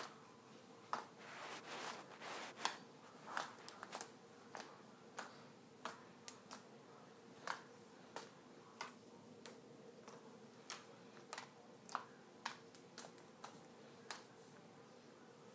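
Gray slime squeezed and pressed by hand, giving off irregular sharp sticky clicks and pops, two or three a second.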